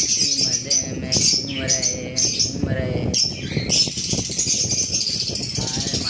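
A room full of caged lovebirds chattering and screeching continuously, a dense high-pitched din, with some lower calls mixed in during the first half.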